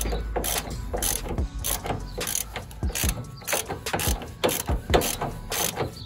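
Ratchet wrench clicking in repeated short strokes, about two a second, running down the nut that holds the pitman arm on the steering gearbox shaft.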